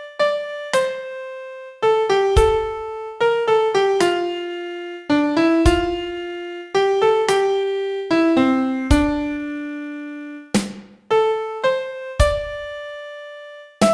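Piano playing a slow song melody one note at a time, with no chords or accompaniment: each note is struck and left to fade before the next, with a few quicker runs of short notes among longer held ones.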